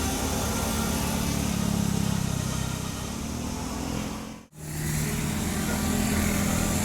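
Road traffic with vehicle engines running steadily. About four and a half seconds in, the sound cuts out abruptly for an instant and resumes.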